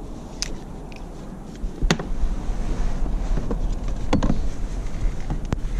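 Low wind rumble on the microphone with scattered clicks and knocks as a sheepshead is handled and measured. The sharpest knock comes about two seconds in, and a few more come about four seconds in.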